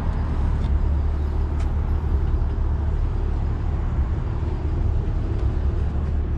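BMW E92 M3's V8 engine and exhaust running steadily, a dense low rumble with no distinct events.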